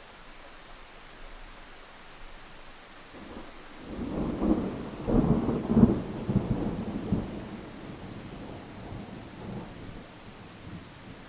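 A thunderclap over a steady hiss of rain: a low rumble builds a few seconds in, peaks with several sharp cracks near the middle, then rolls away and fades.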